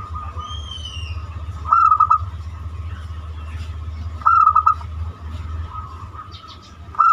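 Zebra dove (perkutut) cooing: a short phrase of a rising note followed by a few quick stuttered notes, repeated three times about every two and a half seconds. A brief high chirp from another bird about half a second in, over a steady low hum.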